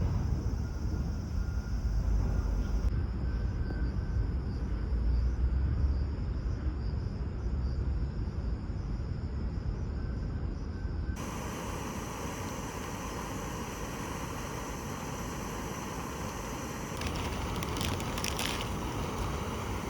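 Outdoor ambience with wind rumbling on the microphone, which changes abruptly about eleven seconds in to a steadier, brighter hiss.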